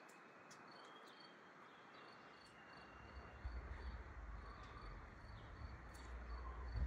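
Quiet outdoor ambience of a faint, repeating high insect-like chirping and a few thin bird whistles over a soft hiss. A low rumble comes in about halfway through.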